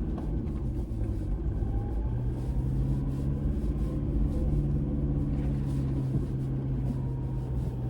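A Toyota Fortuner's engine running steadily as the 4x4 drives a rocky track, with scattered light knocks.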